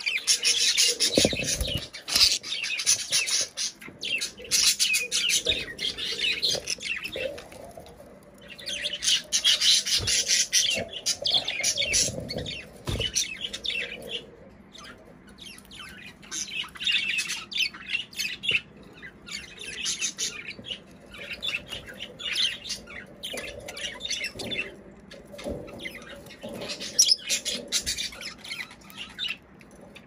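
Budgerigars chattering in bouts of rapid, scratchy high chirps and squawks, with short lulls between bouts.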